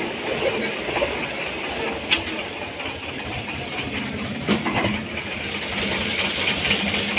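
Tractor diesel engine idling steadily, with a couple of brief knocks about two and four and a half seconds in.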